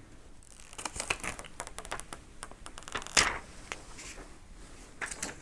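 Paper protective sheet being peeled off a new smartphone's screen: scattered crinkling and rustling with small ticks, loudest about three seconds in.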